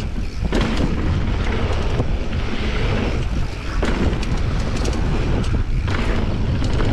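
Wind buffeting the microphone of a mountain biker's camera during a fast descent, over a constant heavy rumble with scattered clicks and rattles from the bike on rough ground.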